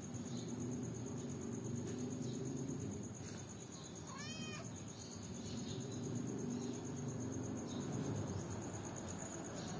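A cat meows once, a short rising-and-falling call about four seconds in. Under it run a steady low rumble and a constant high-pitched whine.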